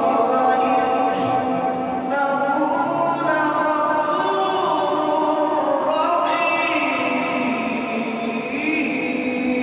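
A man's voice reciting the Quran in the melodic tilawat style, with long drawn-out notes that slide up and down in pitch.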